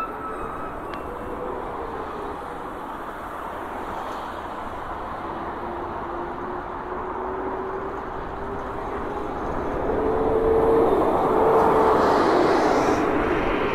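Road traffic at a city intersection: a steady rush of passing cars, with one vehicle's engine note slowly rising in pitch as it pulls away and passes close. It is loudest about ten to thirteen seconds in.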